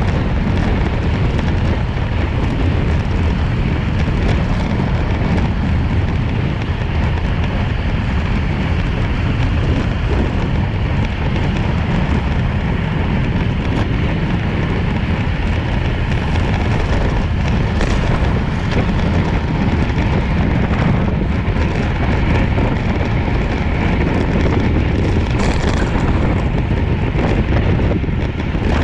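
Steady, loud wind rumble buffeting the microphone of a camera mounted on a road bike racing at about 30 mph.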